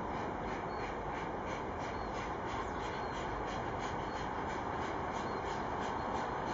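Soviet L-class 2-10-0 steam locomotive working hard, its exhaust chuffing in a quick even beat of about four a second and growing slightly louder as it approaches.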